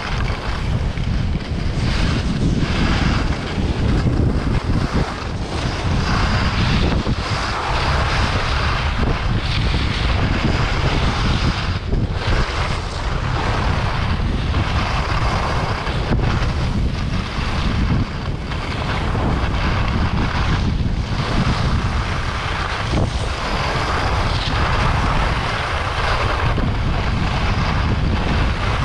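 Heavy wind buffeting the microphone while skiing downhill, with a hissing scrape of skis on snow that swells about every two seconds as the skier turns.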